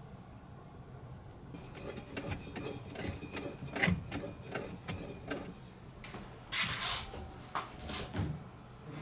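A run of small mechanical clicks and knocks, followed by two short scraping or rustling noises near the end: hands and tools working on parts.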